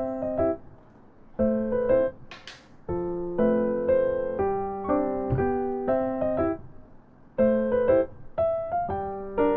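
Light, bouncy background music of electric-piano chords in short phrases, with a brief hiss about two and a half seconds in.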